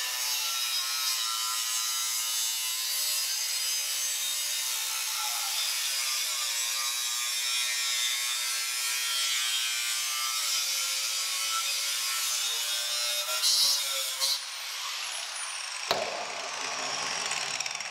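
Angle grinder with an abrasive cutoff wheel cutting through a stainless steel ring: a steady, high grinding hiss with a whine in it, growing a little louder in a couple of bursts near the end. Then the grinder winds down with a falling whine, and there is a knock about two seconds before the end.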